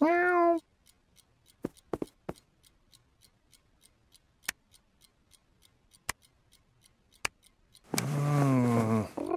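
A cartoon cat's short meow, then faint, steady, fast ticking broken by a few soft single taps, and about eight seconds in a low, drawn-out vocal sound that falls in pitch.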